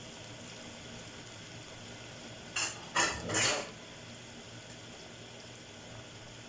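Pan of seafood frying over a gas stove burner, a steady low hiss. About two and a half seconds in, three short clattering scrapes of a utensil against the cookware as chopped calamari is tipped into the pan.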